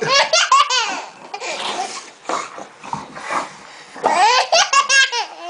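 A baby with hiccups laughing in two bursts of quick, high-pitched chuckles, each about a second long: one at the start and one about four seconds in, with softer breathy sounds between.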